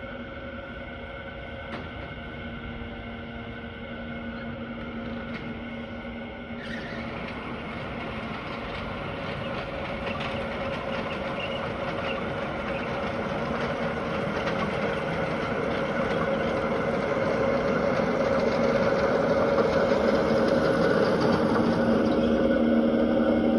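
Lawn mower engine running steadily under load, its sound growing gradually louder.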